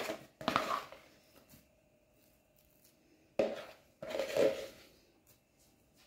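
A few short scraping and scooping sounds of a utensil moving thick vanilla pudding cream from a bowl onto a sponge cake layer, separated by stretches of near silence.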